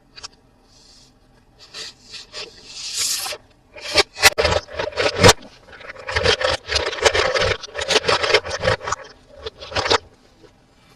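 Hands handling toys and their packaging: scraping, rubbing and sharp clicks. A brief hiss comes about two seconds in, a run of clicks about four seconds in, then a long stretch of dense scraping and rustling.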